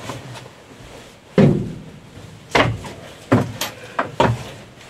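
Several heavy footsteps thudding on wooden floorboards, about five irregular steps, the first the loudest.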